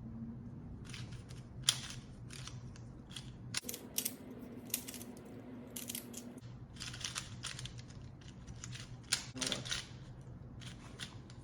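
Plastic Rubik's-style cube being turned by hand while it is solved: irregular clicks and clacks of its layers rotating, sometimes several in quick succession.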